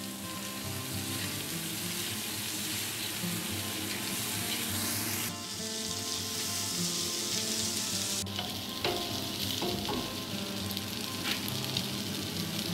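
Chicken seekh kebabs sizzling as they shallow-fry in oil in a pan, a steady hiss, with a spatula now and then turning them and tapping against the pan.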